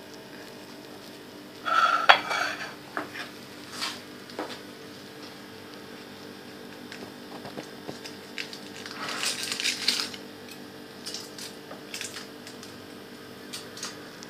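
Ceramic plate clinking and scraping as it is handled on a hard counter, with a loud, ringing clatter about two seconds in and another run of clinks and scrapes near the ten-second mark. A steady low hum runs underneath.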